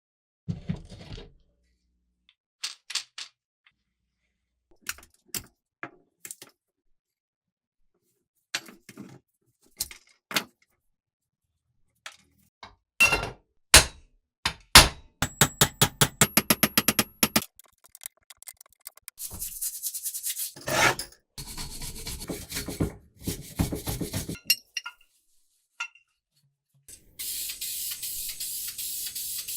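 Work sounds from restoring a rusty hand-crank grinder: scattered metal clinks and taps, then a fast, even run of clicks about halfway through. After that come stretches of rubbing and scrubbing, and a steady hiss that starts near the end.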